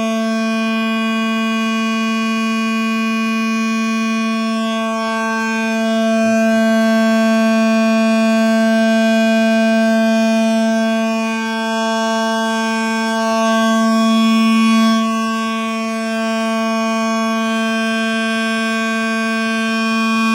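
Homemade toy train horn sounding one continuous low note that holds its pitch. It swells slightly louder a couple of times.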